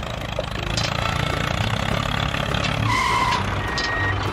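Diesel tractor engine sound running steadily, with two short high beeps about three seconds in.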